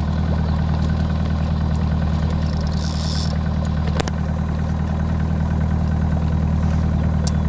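Boat's outboard motor idling steadily, a low even hum.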